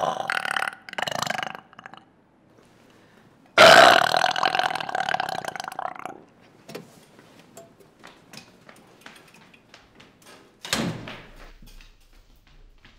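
A woman burping: short burps in the first two seconds, then one long, loud burp starting about three and a half seconds in and lasting over two seconds. A sudden thump comes near the end.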